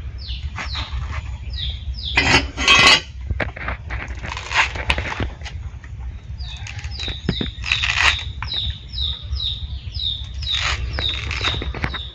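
Thick pomelo rind being sliced and shaved against a boti blade, in several short rasping strokes. A bird chirps over it in short falling notes, coming about twice a second in the second half.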